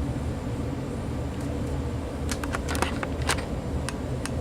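Steady low background hum with a scatter of light, sharp clicks and taps from about a second and a half in, like small plastic equipment being handled.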